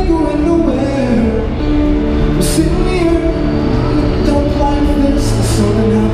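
A man singing a song into a microphone while playing an acoustic guitar, both amplified through a small portable amp.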